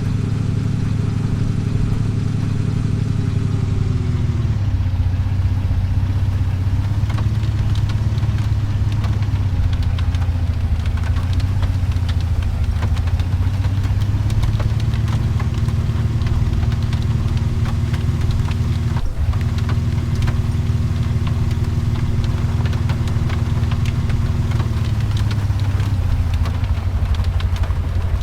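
A vehicle engine runs steadily throughout. Its pitch drops about four seconds in, rises again a few seconds past the middle, and drops once more near the end.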